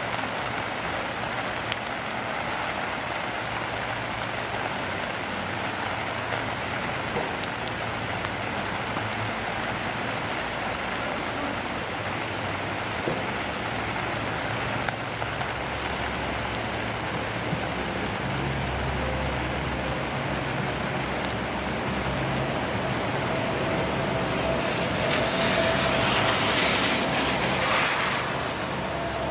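Steady rain falling on grass and leaves, an even hiss with scattered drop ticks and a low rumble underneath. It swells louder near the end.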